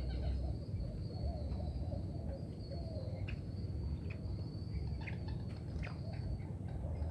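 Outdoor ambience: a steady low rumble under a continuous high insect drone. Wavering bird calls sound in the first few seconds, and a few short chirps come later.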